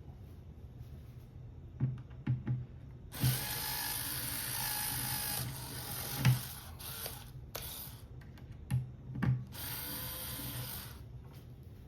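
A handheld power drill or driver runs in bursts, with a motor whine. A few knocks come about two seconds in. Then a run of about two and a half seconds, several short spurts, and another run of about a second near the end.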